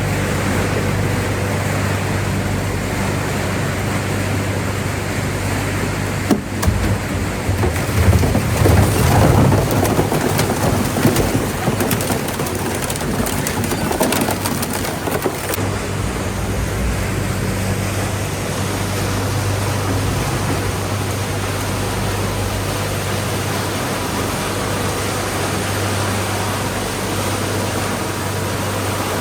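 Machinery of a refrigerator and appliance recycling line running: a steady low mechanical hum under a broad rushing noise. The noise grows rougher and louder for several seconds in the middle, then settles back to a steady drone.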